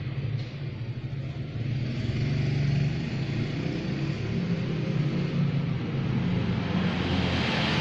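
Motorcycle engine running steadily, a little louder from about two seconds in.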